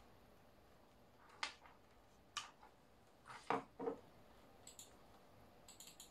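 A few light clicks and taps from small hard objects being handled on a work surface, the two loudest a little past halfway, then faint high ticks near the end.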